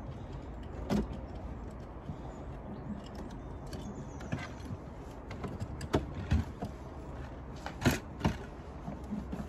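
Scattered sharp clicks and knocks of plastic and cable being handled as the battery's red positive-terminal cable and its plastic cover are moved aside. There is one knock about a second in and a cluster near the end, the loudest just before the end.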